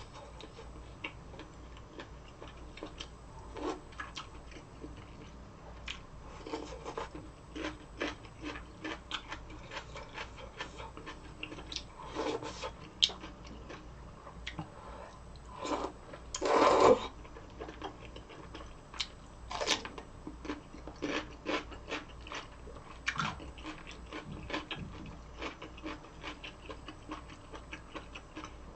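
Close-miked eating: irregular short mouth clicks and crunches from chewing, with a louder burst lasting about a second a little past the middle.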